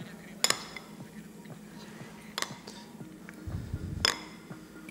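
Kitchen utensils clinking against dishes: three sharp clinks about two seconds apart, with a soft low bump just before the last one.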